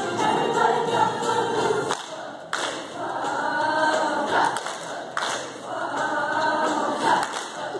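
Sixth-grade school chorus of girls singing together in phrases, with short breaks between phrases about two and five seconds in.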